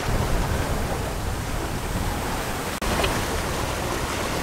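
Steady rush of water streaming past the hull of a Tayana 37 sailboat moving fast under sail, mixed with wind noise. The sound drops out for an instant about three seconds in.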